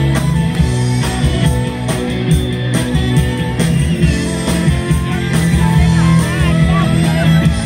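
A live rock band playing amplified: electric guitars, bass, drums and a saxophone together, with a steady beat.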